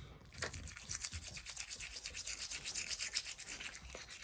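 A toothbrush scrubbing a dog's teeth, with rapid, even back-and-forth strokes starting about half a second in.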